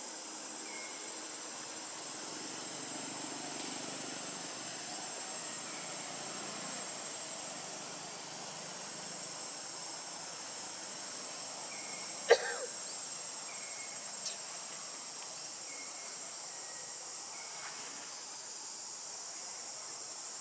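Steady, high-pitched chorus of insects in the trees. About twelve seconds in, one sharp, brief sound stands out loudest, with a smaller one about two seconds later, and a few faint short chirps come and go.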